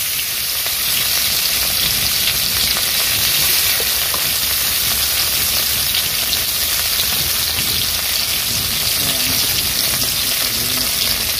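Beef chilli burgers sizzling as they fry, a steady loud hiss with fine crackling throughout.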